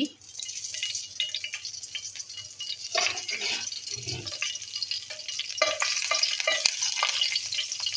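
Curry leaves sizzling in hot oil in a nonstick kadai, a steady spattering hiss, with a steel spoon clinking and stirring in the pan in the second half.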